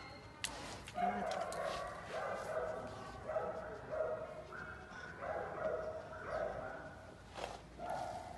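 A dog barking repeatedly in short, drawn-out, pitched calls, about one a second.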